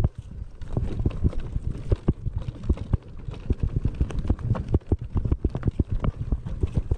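Enduro mountain bike rattling and knocking over a rough, rocky trail: irregular sharp knocks several times a second over a low rumble.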